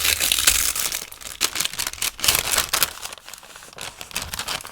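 Packaging around sticker sheets being torn open and handled, with close, crisp crinkling and rustling. It is loudest in the first second, comes again in a burst a little after two seconds, then settles into quieter handling.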